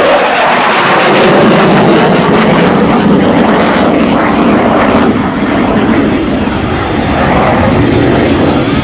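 Saab JAS 39 Gripen fighter's single Volvo RM12 turbofan: loud, continuous rushing jet noise during a display flypast and pull-up. It eases slightly about five seconds in.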